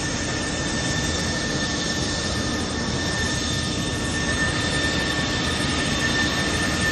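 An airliner's jet engines running steadily: a loud, even rush of air with a constant high whine on top.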